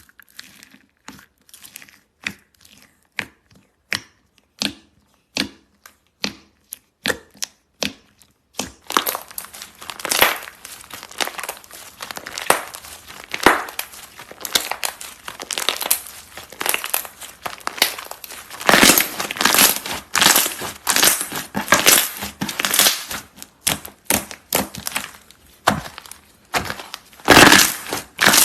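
Crunchy slime being pressed and squeezed by hand. At first there are separate crisp crackles about two a second, then about a third of the way in a dense, continuous crackling with louder crunches.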